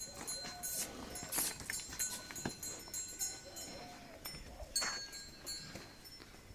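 Livestock being moved around a pen: scattered knocks and clatters with a few faint animal calls, quieter toward the end.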